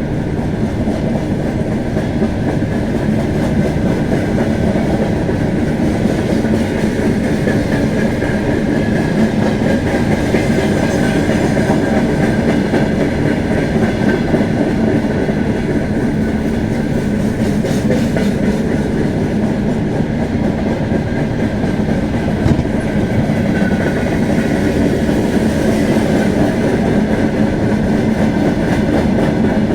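TE33A diesel-electric locomotive on the move: a steady engine drone with the clickety-clack of wheels running over the rails. It goes on evenly throughout, with only faint changes in the higher whine.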